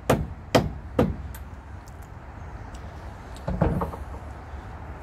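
Hammer knocks on the coupling of two fairground ride tram cars, working the joining pin loose: three sharp strikes about half a second apart, then a rattling metallic clank about three and a half seconds in.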